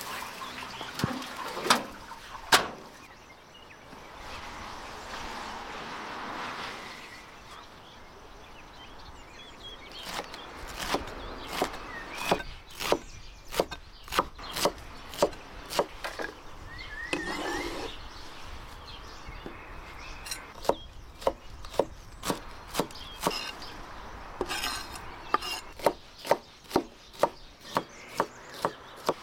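Large knife chopping vegetables on a wooden cutting board: crisp, evenly spaced chops about two a second, in several runs. A couple of sharp knocks near the start.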